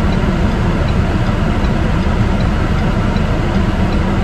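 Steady car cabin noise from the engine and road, a low rumble, with a faint regular ticking of about three ticks a second.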